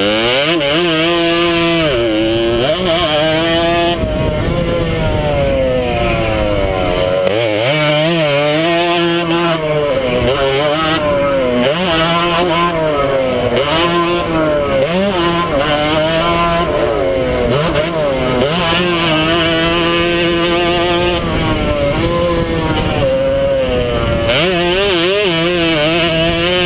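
100cc two-stroke motocross bike engine at racing speed, revving up and dropping back over and over as the rider goes through the gears and backs off for turns and jumps. Wind and exhaust hiss are heard from the rider's helmet camera.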